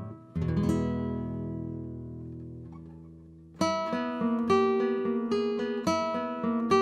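Solo classical guitar: a full chord is strummed just after the start and rings, dying away for about three seconds. Then a run of single plucked notes, about three or four a second, picks up the melody over a sustained bass.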